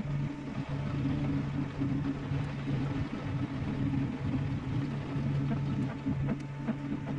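New Holland T7.270 tractor's six-cylinder diesel engine running steadily, a constant low hum that holds its pitch throughout.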